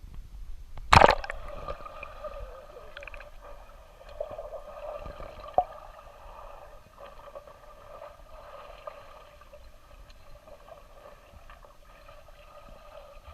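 A Doberman pinscher leaping into a swimming pool with one loud splash about a second in, followed by steady gurgling, sloshing water.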